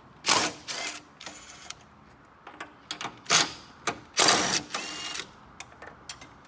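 DeWalt cordless impact tool hammering on the strut-tower top-mount nuts of a Honda Civic, in several short bursts, the last and longest with a steady motor whine.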